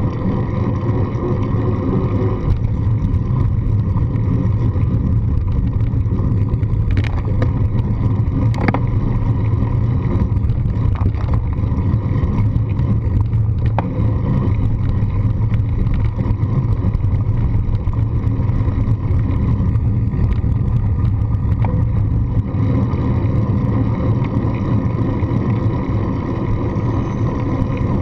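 Steady wind rush and low rumble on a handlebar-mounted GoPro's microphone as a bicycle rolls along a paved path, with a few sharp clicks near the middle.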